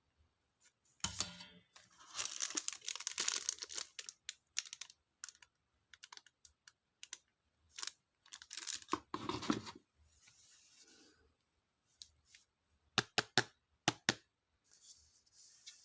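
Stationery packaging being handled and opened: tearing and crinkling of thin paper and plastic in irregular spells, with several sharp clicks near the end.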